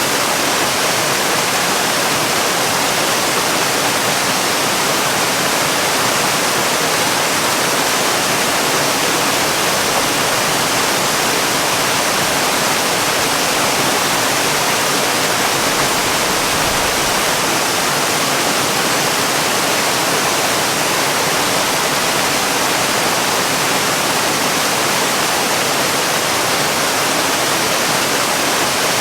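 Waterfall: a steady, even rush of falling water, a continuous hiss with little low rumble.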